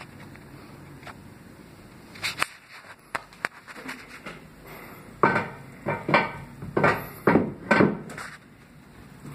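Knocks and clatter from handling: a few scattered light clicks in the first half, then about seven louder sharp knocks in quick succession in the second half.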